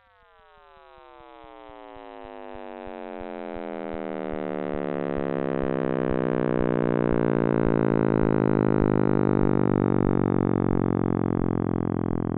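Space radio or plasma-wave data converted into audio: an eerie, synthetic-sounding drone of many stacked tones that slide downward in pitch and spread apart. It swells up over the first several seconds and then holds steady, with faint low clicks beneath.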